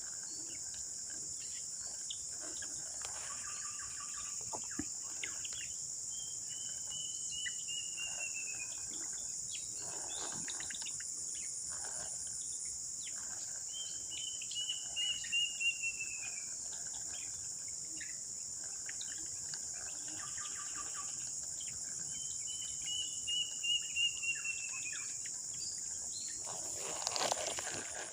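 A steady, high-pitched insect chorus of crickets or cicadas. Over it, a bird repeats a short call of quick notes that falls in pitch, four times, several seconds apart.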